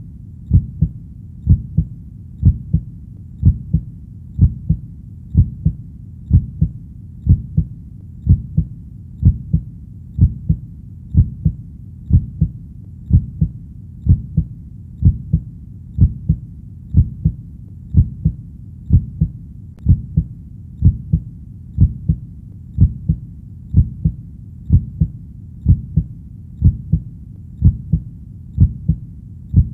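Heartbeat, a steady lub-dub double thump repeating about once a second, low and dull, over a faint low steady background between beats.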